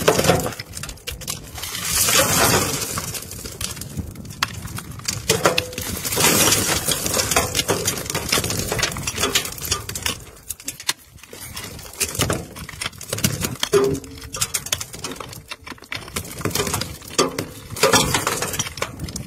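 A metal hand tool striking and prying at a loose rock face: repeated sharp clinks of metal on stone, with broken stones clattering and sliding down in a few longer rushes.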